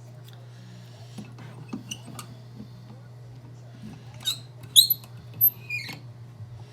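Metal lock cylinder being fitted into a holding vise: light clicks and knocks, with several short high-pitched squeaks about four to six seconds in, over a steady low hum.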